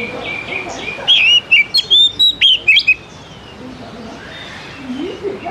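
Oriental magpie-robin singing: a few repeated short whistles, then about a second in a loud run of quick sweeping chirps and whistles lasting some two seconds, then softer notes.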